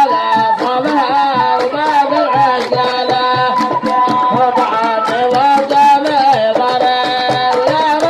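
Music: an Arabic sharh song, a gliding melody over a steady, quick hand-drum beat.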